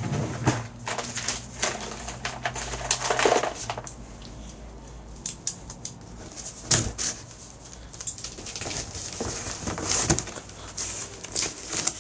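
A cardboard shipping box being handled and opened by hand: irregular taps, scrapes, tearing and rustling of cardboard and packing tape.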